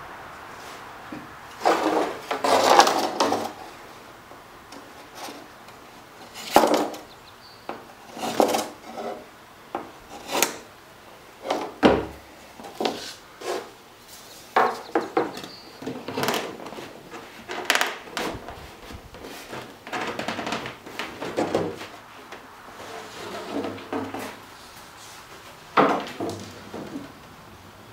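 Thin cedar strips knocking, clacking and rubbing against one another and against the hull as they are handled and fitted in place, in irregular short bursts. A sharp click comes about twelve seconds in.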